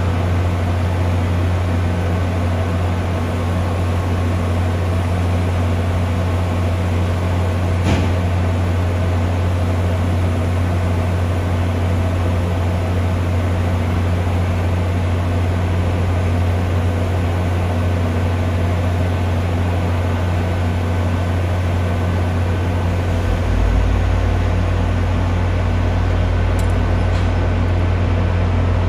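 Steady deep mechanical hum of a standing diesel commuter train idling at the platform, with one short click about eight seconds in. A deeper low rumble joins near the end.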